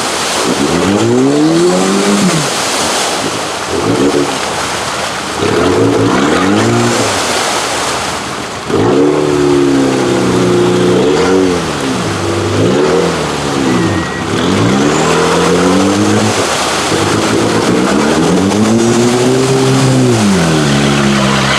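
Suzuki Samurai mud bogger's engine revving hard, its pitch climbing and falling again and again as the throttle is worked.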